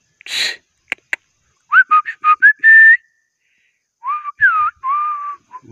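A person whistling two short phrases of breathy notes that slide up and down in pitch, preceded by a short puff of breath and two clicks.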